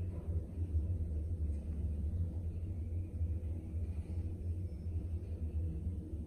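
Passenger elevator car travelling downward between floors: a steady low rumble from the moving car and its drive.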